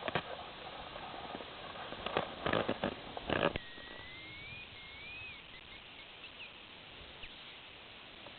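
Rustling and cracking for the first few seconds. A thin hazel grouse whistle follows, one long slowly rising note and then a short wavering note, with a few faint short notes after; the whistle sounds distorted.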